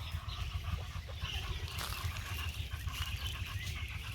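Village poultry calling over a steady low rumble.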